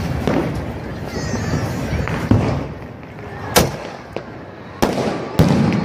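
Firework hissing as it sprays sparks, with a faint wavering whistle, then three sharp bangs in the second half, the loudest first and two more close together near the end.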